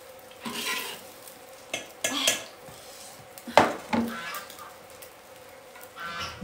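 Kitchen utensils clinking and scraping against a pot or dishes in a few separate clatters, the sharpest about three and a half seconds in.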